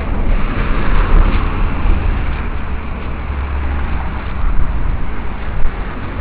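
Motor vehicle running with road noise: a steady low rumble under a rushing noise that swells about a second in.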